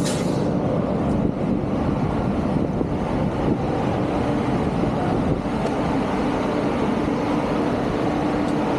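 Indian Railways WAP-7 electric locomotive standing with its equipment running: a steady hum over a dense mechanical rumble, with a short hiss at the very start.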